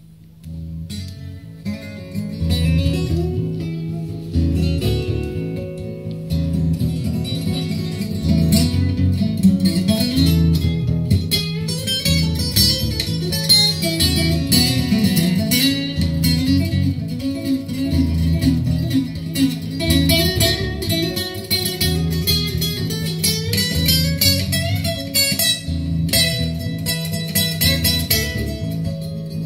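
Instrumental guitar music, played back through a home-built Hiraga class-A amplifier and two-way loudspeakers and picked up by a microphone in the room. The track fades in over the first couple of seconds, then continues with steady bass notes under plucked guitar.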